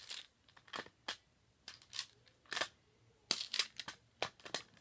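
Plastic magnetic building tiles clicking and clacking as they are handled and snapped together: a string of sharp, irregular clicks, some in quick clusters.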